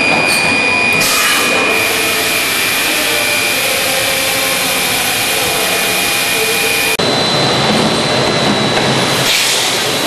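Machine for making 5-liter containers running loudly, a steady mechanical noise with a high whine. The sound shifts abruptly twice, and partway through the whine gives way to a higher one.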